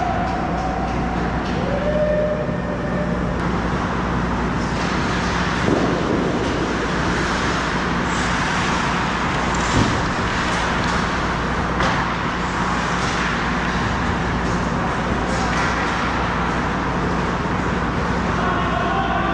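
Ice hockey rink game sounds: a steady hiss of skates on the ice over the rink's constant machinery hum, with three sharp knocks spread through.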